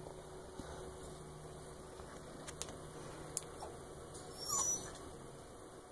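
Young pet rats: a few faint clicks over low room hiss, and one short high-pitched squeak a little past halfway.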